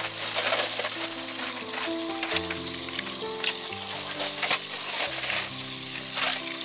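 Kitchen tap running and splashing into a stainless-steel sink as meat and a steel pot are rinsed by hand, a steady hiss with small splashes. Background music of held notes plays over it.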